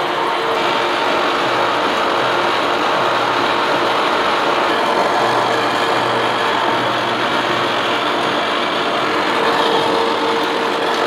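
8-inch face mill on a Lucas 441B-48 horizontal boring mill cutting across a metal angle plate, a steady machining noise with a faint steady tone running under it. The spindle is slowed to keep down the chatter that came at higher speed.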